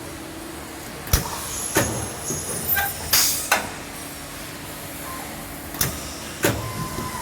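Door closer on an automatic cycle-test rig, with the test door being opened and pulled shut over and over. Sharp clunks come a few times and there are short hisses about three seconds in, over a steady machine hum.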